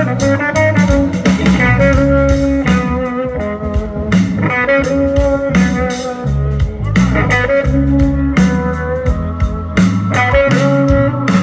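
Live blues-rock band playing: electric guitars over bass and drums.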